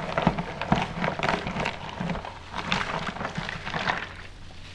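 A plastic cup and gloved hands scooping through wet chopped fruit in a large acrylic tub, giving an irregular run of wet squelches, clicks and plastic knocks that eases off near the end.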